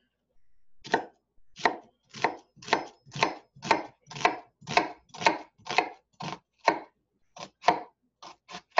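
Chef's knife dicing an onion on a wooden cutting board: steady chopping strokes, about two a second, each a knock of the blade through the onion onto the board, with a few quicker, lighter cuts near the end.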